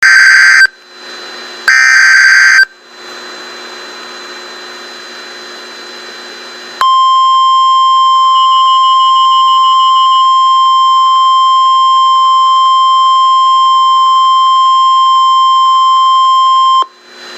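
NOAA Weather Radio emergency alert: two loud bursts of SAME header data tones at the start, a few seconds of radio hiss, then the steady 1050 Hz warning alarm tone held for about ten seconds and cut off abruptly, the signal that opens a Severe Thunderstorm Warning broadcast.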